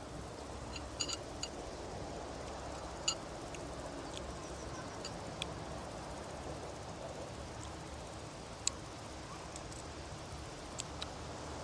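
Several light, sharp clinks of small tableware, a few seconds apart, over a steady background hiss and low hum.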